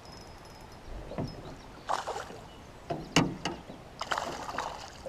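Knocks and rustling in a fishing boat: a handful of sharp knocks, the loudest about two and three seconds in, then scraping and rustling near the end.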